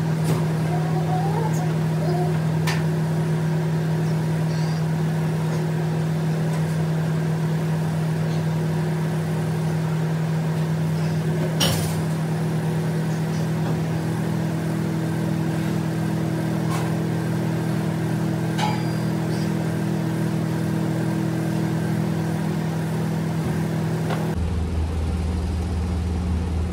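A steady low machine hum, with a few sharp metallic knocks from dumbbells handled during a flat-bench dumbbell press set; the loudest knock comes about twelve seconds in. The hum changes abruptly near the end.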